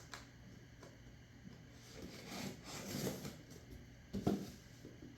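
Hands rummaging and handling objects: rubbing and rustling with light clicks, a louder stretch of handling near the middle and a sharp knock about four seconds in.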